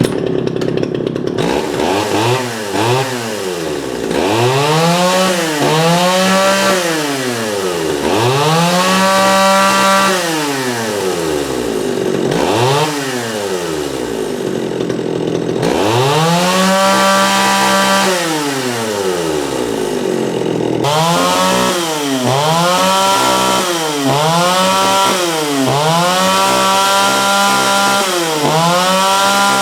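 John Deere 45EV two-stroke chainsaw running and being revved over and over: the engine speed climbs and falls back about ten times.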